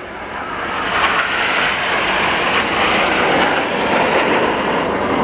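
Nine BAE Hawk T1 jets of the Red Arrows flying past in close formation: a broad jet-engine noise that builds over the first second and then holds loud.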